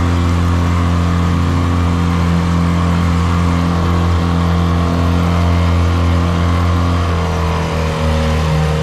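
Mercury outboard engine running at a steady cruising speed with the boat underway, a constant drone that sags slightly about seven seconds in.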